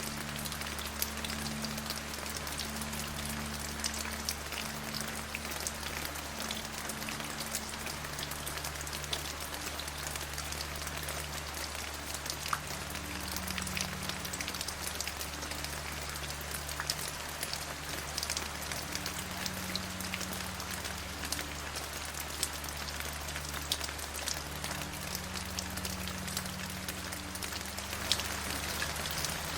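Steady rain falling on a surface, a continuous hiss with many individual drops ticking through it, over a few low steady tones.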